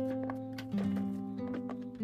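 Background music: acoustic guitar playing sustained chords that change a few times a second.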